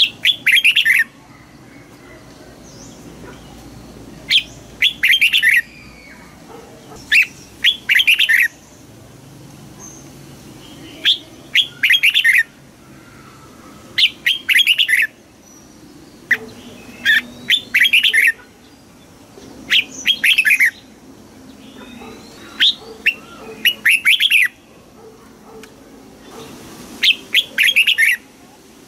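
Red-whiskered bulbul singing its competitive fighting song: short, loud, warbled phrases repeated every two to three seconds.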